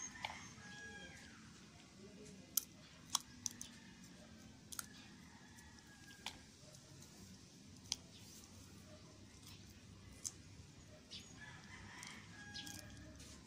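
Faint bird calls at the start and again near the end, with about six sharp, separate clicks in between.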